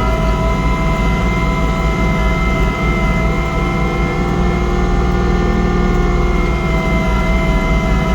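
Kubota compact tractor's diesel engine running steadily at constant speed under load, driving its snowblower through heavy wet snow.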